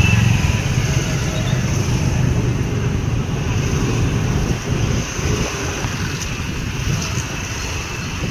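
Steady low rumble of slow street traffic, cars and motorcycles, with wind buffeting the microphone.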